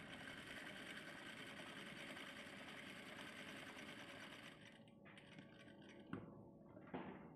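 Electric sewing machine running steadily as it stitches a seam, for about four and a half seconds, then a few short bursts of stitching and two sharp clicks near the end.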